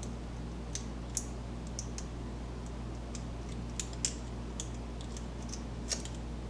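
Faint, irregular light metallic clicks and ticks of a lock pick working the pin tumblers of a Master Lock padlock while a torsion bar holds tension on the plug.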